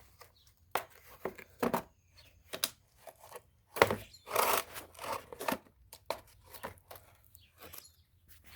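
Handling noise from a torque wrench being got out of its storage bag: a rustle of the bag with scattered knocks and clicks, and a longer rustling stretch about halfway through.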